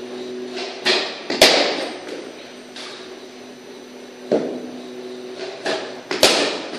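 Cricket ball struck by the bat and bouncing on the hard floor of a practice net: a few sharp wooden knocks in two groups, the loudest about a second and a half in and near the end.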